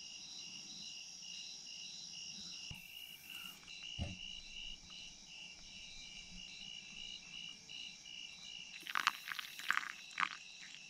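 Insects chirping steadily in fast, even pulsed trills, with the rhythm changing a little under three seconds in. A single low thump about four seconds in, and a cluster of loud, sharp noises near the end.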